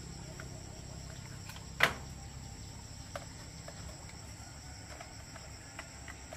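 Crickets chirring in a steady high-pitched drone over a low steady hum, with one sharp knock a little under two seconds in and a few faint ticks later.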